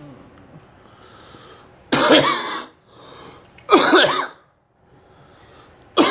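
A person coughing: two harsh coughs, about two seconds and four seconds in, and a third starting at the very end.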